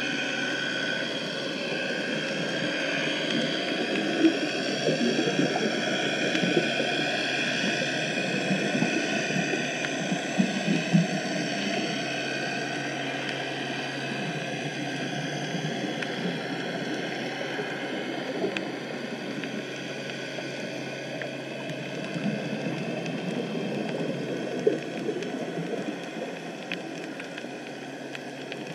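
Underwater ambience picked up by a GoPro Hero 5 inside its housing: a steady muffled rushing with fine crackling and a few small knocks, a little busier in the first half.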